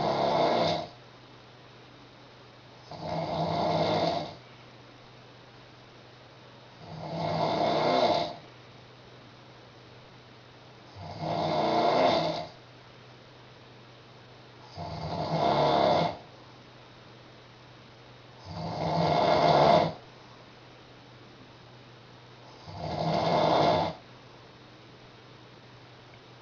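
A young woman snoring loudly in her sleep: one snore about every four seconds, seven in all, each swelling over a second or so and then cutting off sharply.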